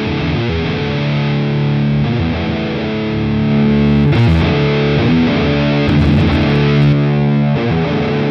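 Electric guitar played through an Electro-Harmonix Flatiron distortion pedal: heavily distorted chords, held and changed a few times.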